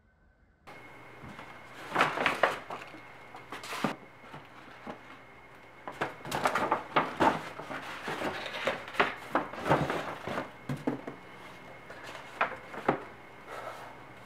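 Stiff paper shopping bag rustling and crinkling as a white cardboard box is pulled out of it and laid on a desk, with short sharp crackles and light knocks from the box and bag handles. The handling sounds come in clusters, about two seconds in, from about six to ten seconds, and again near the end.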